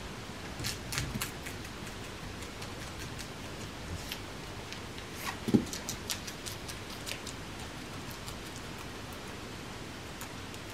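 Guinea pigs biting a crisp lettuce core: small crunchy snaps in bunches, about a second in and again from about five to seven seconds in, over a steady hiss. A single dull knock about five and a half seconds in is the loudest sound.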